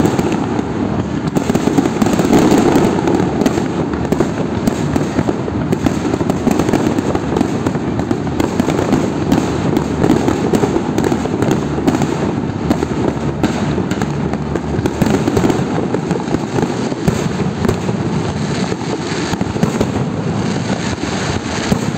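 Fireworks display going off, a dense crackle of many quick pops and bangs from fountains and aerial bursts, with no break.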